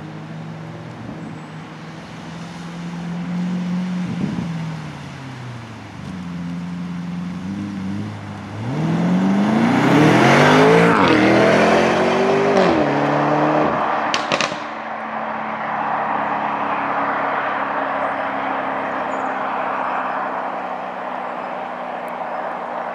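Lamborghini Urus Performante's twin-turbo V8 through an Akrapovic exhaust, running steadily at first, then accelerating hard about eight seconds in with its pitch climbing. A few sharp crackles come from the exhaust around fourteen seconds in, followed by a steady rushing noise.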